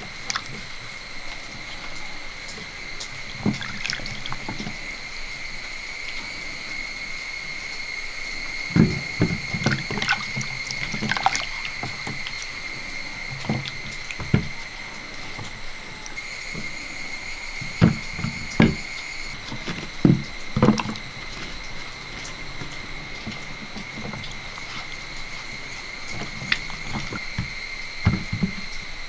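Raw green mangoes being washed by hand in a bowl of water: sloshing and splashing, with several sharper splashes and knocks of fruit against the bowl. A steady high-pitched whine runs underneath.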